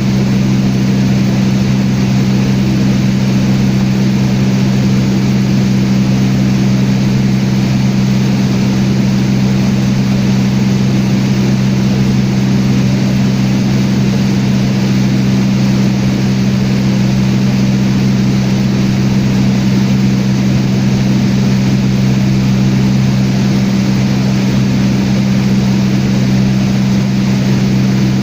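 Small airplane's engine and propeller running steadily in flight: an unchanging drone built on two strong low hums.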